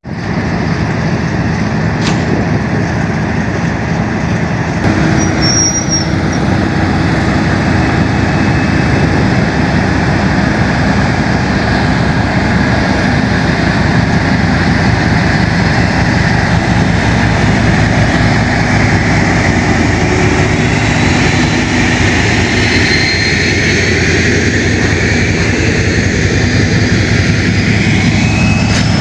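A train running close by, a loud steady mechanical hum. In the last few seconds there is a rising whine.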